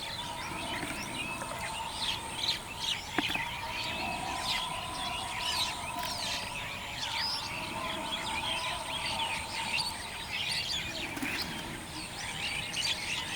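Many small birds chirping and calling over one another in a dense outdoor chorus, with a faint steady tone underneath and a single sharp click about three seconds in.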